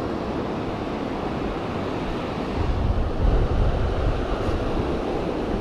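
Surf washing on the beach with wind buffeting the microphone; a stronger low rumble of wind comes through in the middle.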